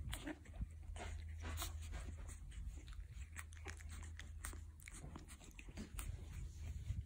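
A young puppy mouthing and chewing on a person's fingers with its new sharp teeth: faint, irregular small clicks and snuffles over a low steady hum.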